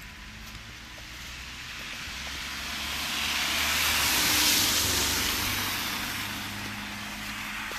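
A vehicle passing by: a wide tyre hiss over a low engine hum that builds, peaks about halfway through and fades away.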